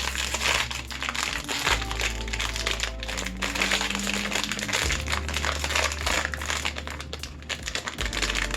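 Crinkling packaging of a blind-box mini figure, handled and unwrapped in quick, irregular rustles throughout.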